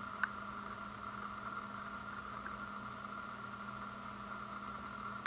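A steady electrical-sounding hum with a few fixed tones, broken by one short click about a quarter second in and another at the end.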